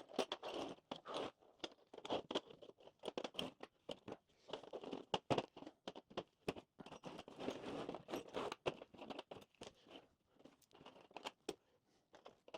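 Small metal hardware (nuts, bolts, wrenches and other junk parts) being sorted by hand: irregular clinks, taps and scrapes as pieces are picked up, set down and slid across a surface, thinning out near the end.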